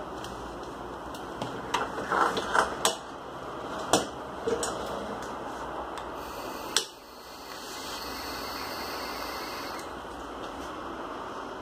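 Clicks and knocks of a vape mod and rebuildable atomizer being handled, then a steady hiss of about three seconds as a draw is taken through the atomizer with the coil firing.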